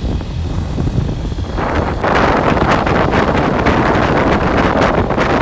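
Wind rushing over the microphone of a moving Honda CB125 motorcycle, over the low rumble of its engine at road speed. The wind noise gets clearly louder about one and a half seconds in.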